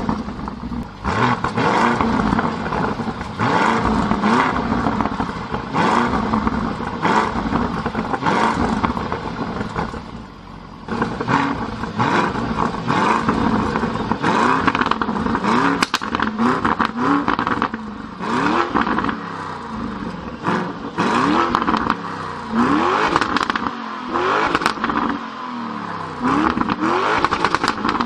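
Lamborghini Urus 4.0-litre twin-turbo V8 running loud just after a cold start. About halfway through, with the exhaust valves open, it is blipped in a string of quick revs, each rising and falling in pitch.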